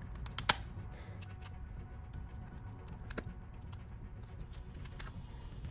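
Scattered small clicks and taps of hand tools being handled against the phone and the work surface, with one sharper click about half a second in.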